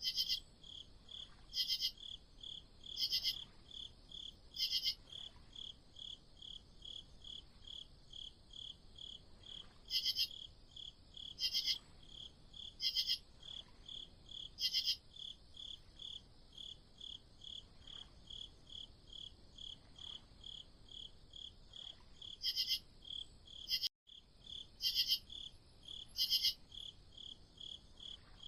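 Crickets chirping at night: a steady run of short chirps, about two a second, with a louder, higher trilling chirp breaking in every second or so in short clusters. The sound cuts out for an instant about four seconds before the end.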